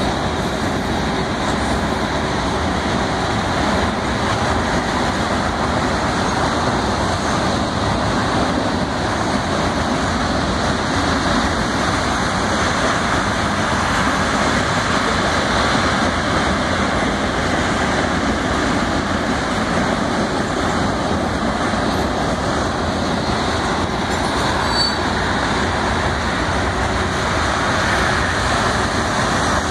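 Freight train of tank cars passing: a steady noise of steel wheels rolling on the rails.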